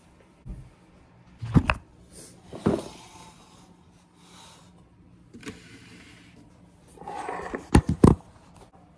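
Handling noise from the camera being picked up and repositioned: several knocks against it, with fabric rubbing over the microphone in between, and two sharp knocks near the end.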